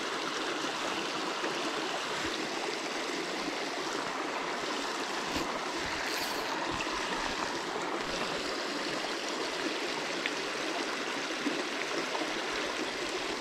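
Small rocky mountain creek flowing steadily, a continuous even rush of water over stones. About halfway through, a brief high swish as a fly line is cast.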